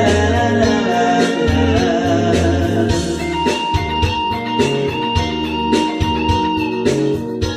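Band music with guitar, bass and a steady beat, and a long held note in the middle of the passage.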